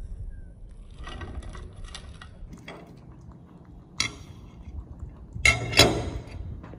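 Kitchen utensils and dishes clinking and clattering, with a sharp knock about four seconds in and a louder clatter near the end.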